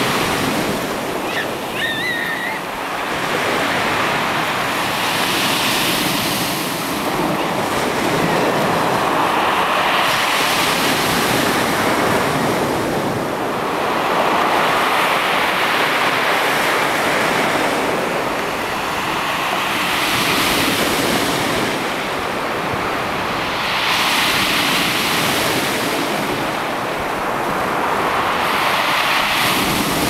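Surf breaking on a shingle beach, the waves swelling and falling back every few seconds.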